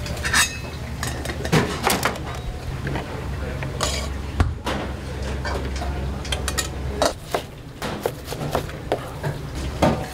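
Restaurant kitchen clatter: dishes and utensils knocking and clinking in scattered sharp strikes, the sharpest about four and a half seconds in, over a steady low hum.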